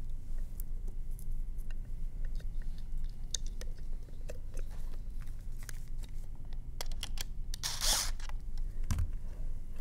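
Scattered light clicks and taps of the pump's plastic volute and small screws being handled and fitted, with a short, louder rasp near the end as a cordless screwdriver is set to a screw.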